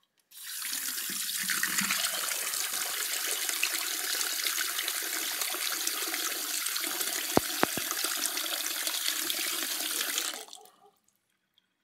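Bathroom sink faucet running into the basin, water splashing and swirling down the newly replaced drain, which drains freely. It shuts off about ten seconds in. Three brief knocks come a little past halfway.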